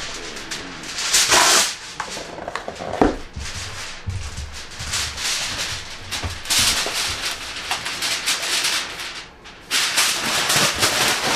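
Aluminum foil being handled, with irregular crinkling and rustling, a louder tearing burst about a second in and another stretch of loud crinkling near the end.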